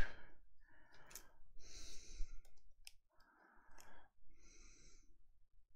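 A person breathing close to the microphone, four breaths in a row about a second and a half apart, with a few faint clicks from trading cards being handled.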